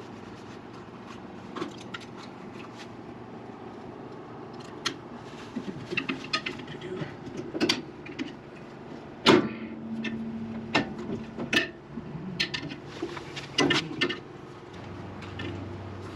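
Irregular knocks and clatter of hand work on sawmill head parts, with the loudest sharp knock about nine seconds in.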